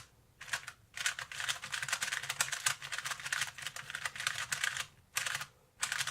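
Plastic clicking and clacking of a 2x2 puzzle cube being turned rapidly by hand, repeating the R U R' U' "sexy move" trigger, in a fast run broken by short pauses near the start and near the end.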